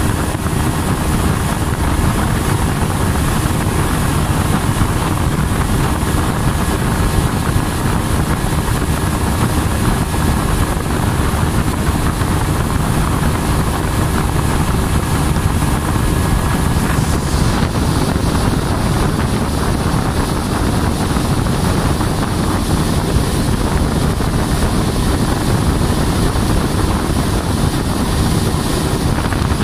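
Motorboat engine running steadily under way, with wind noise on the microphone.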